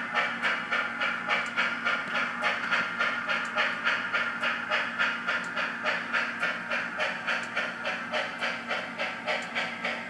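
Digital steam-locomotive sound from a SoundTraxx Tsunami TSU750 heavy steam decoder and oval speaker in a Kato N scale Union Pacific 4-8-4 FEF 844: a steady, even beat of hissing exhaust chuffs, about three a second, over a low hum. It grows a little fainter near the end.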